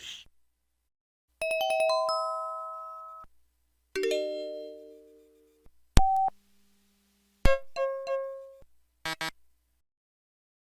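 A string of short synthesized system tones from a Curitel S4 mobile phone's Yamaha MA-5 sound chip, recorded directly from the handset's output, each followed by silence. In turn: a rising stepped chime, a decaying chord, a sharp click, a quiet low tone, a short jingle, and two quick beeps near the end.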